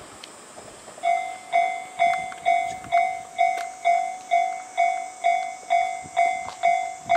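Railway level-crossing alarm ringing about twice a second, each strike a clear bell-like tone that fades quickly. It starts about a second in, over the faint sound of a passing train.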